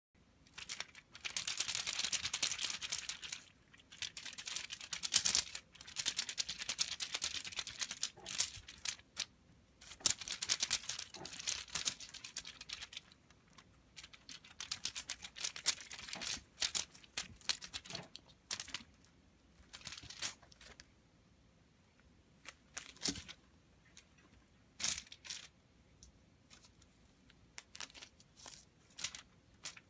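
A feather-and-streamer wand cat toy rustling as it is swished about and batted by a kitten. The rustling comes in bursts of a few seconds through the first half, then in short scattered rustles and light taps.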